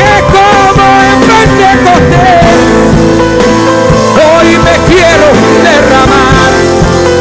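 Live church worship band playing an upbeat rock-style song, with acoustic and electric guitars, keyboard and drums under a sliding lead vocal line.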